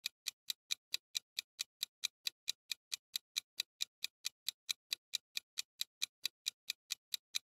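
Countdown-timer ticking sound effect: rapid, even clock ticks, about five a second.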